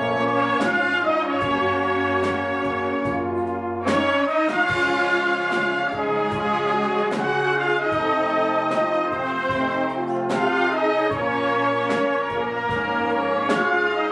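Wind orchestra playing, with brass to the fore: sustained full chords over repeated percussion strokes, the harmony changing about four seconds in and again near ten seconds.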